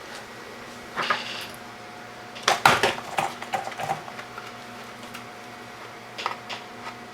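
Small hard objects clattering and clicking as they are handled and set down: one rattle about a second in, a busier run of knocks in the middle, and a few light clicks near the end, over a steady hum.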